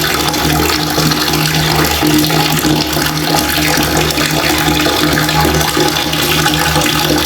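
Water running steadily from a tap in a full, unbroken stream, with a faint low hum underneath.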